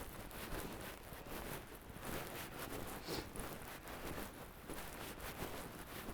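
Faint, irregular crunching and rustling of footsteps in snow, with a low steady rumble of wind on the microphone.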